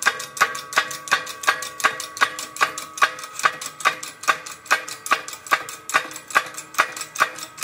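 Hydraulic shop press working as a wheel hub is pressed into a new front wheel bearing: a steady metallic ticking, about two and a half clicks a second, each click with a short ring. The pressing runs until the hub bottoms out in the bearing.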